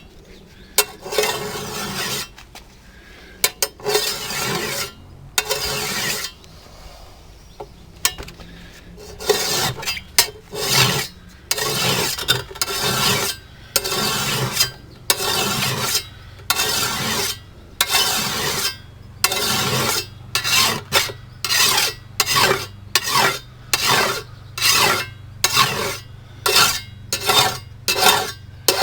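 Single-cut flat file rasping along the steel edge of a hand brush-cutting blade as it is sharpened, in repeated strokes. The strokes are uneven at first, then settle to about one a second, coming a little faster near the end.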